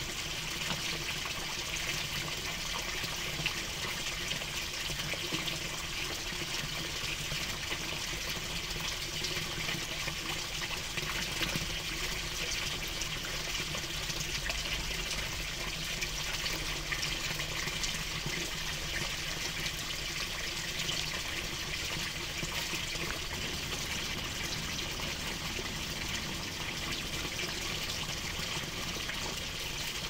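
Water running steadily, the even trickle and rush of a small stream.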